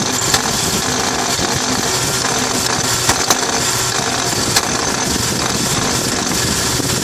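1997 Jeep TJ engine running with a failed power steering pump and worn pulley bearing, giving a steady, loud mechanical noise. A few sharp knocks come through it, near the start and about three and four and a half seconds in.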